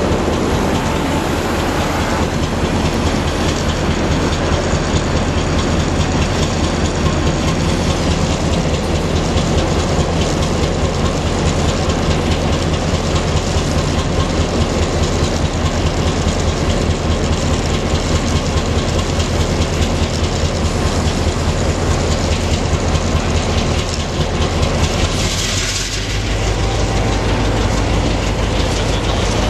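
Three EMD diesel locomotives running in multiple, their engines droning steadily at low speed, with wheels clattering over the yard's rail joints as they roll through.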